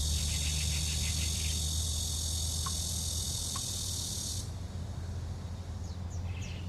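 A dense, high-pitched insect chorus shrilling steadily, then cutting off suddenly about four and a half seconds in, over a low steady rumble.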